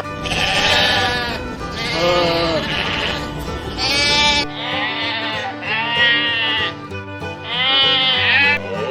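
Goats bleating, about six calls of roughly a second each, over background music.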